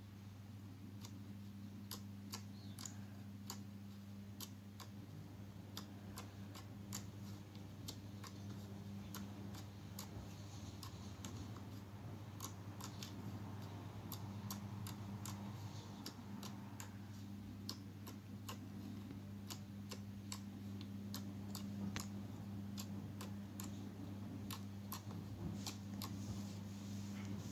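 Irregular light clicks and ticks, a few a second, over a steady low hum.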